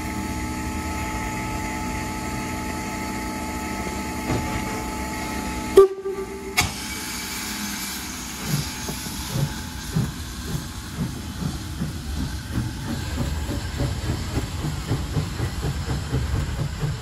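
Steam locomotive Q 350 standing with a steady hiss and hum, then a short sharp toot of its whistle about six seconds in. After that it pulls away, its exhaust chuffs coming steadily faster.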